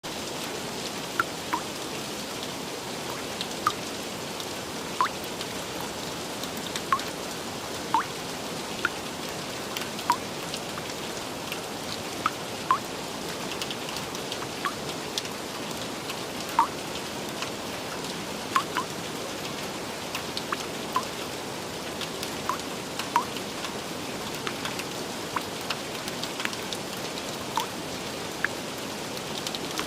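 Gentle, steady rain with a constant hiss. Over it, louder single drops land at irregular moments, roughly one every second or so, each a short pitched plink.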